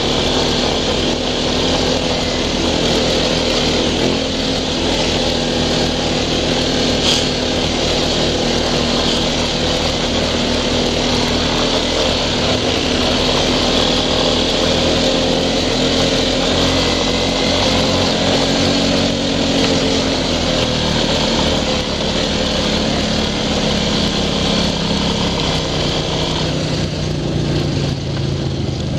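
Single-cylinder ATV engine running at a steady, even pace while the quad travels along a dirt trail.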